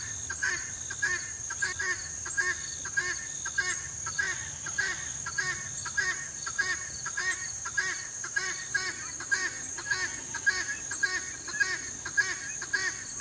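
Guinea fowl calling over and over, a harsh call repeated about twice a second without a break. A steady high-pitched drone runs behind it.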